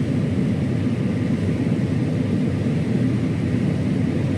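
Steady low drone of a John Deere combine running while harvesting corn, heard from inside the cab.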